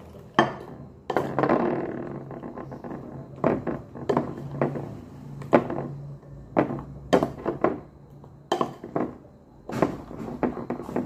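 A spoon stirring hot cake batter in a bowl, knocking and clicking against the bowl's side at irregular intervals. Near the start, water is poured from a glass into the batter.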